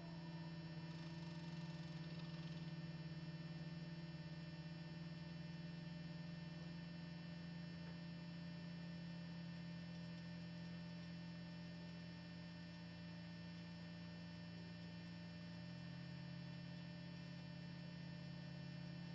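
A steady low hum, with a slightly deeper tone joining about three-quarters of the way through.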